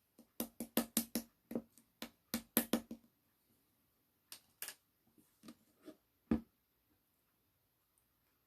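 White slime being worked by hand, giving a quick run of sharp clicking pops for about three seconds, then a few scattered pops, the loudest a little after six seconds.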